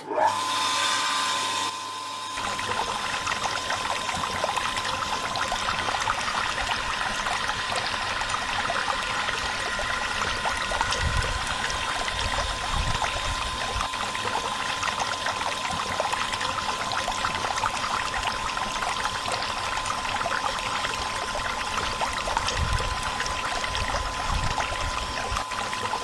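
Water pouring and splashing from the hose of a miniature electric water pump onto a hard model surface. Under it the pump motor runs with a steady thin whine.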